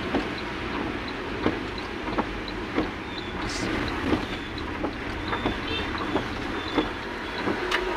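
A vehicle on the move, with steady road and engine noise and a light, regular ticking about three times a second.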